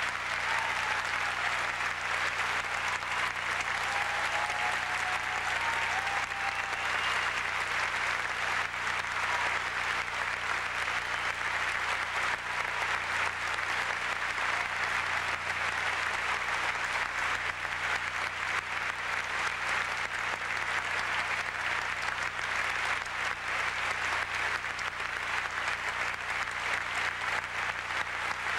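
Audience applauding steadily and continuously, with a few faint whistles in the first several seconds.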